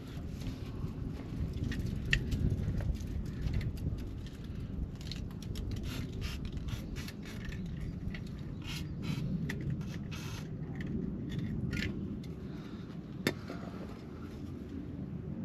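Hand tools and metal parts being handled: scattered clicks, scrapes and light rattles, with one sharper click near the end, over a steady low rumble.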